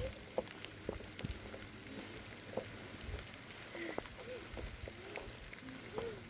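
Rain falling, with many scattered sharp drops tapping. Faint short rising-and-falling calls sound now and then.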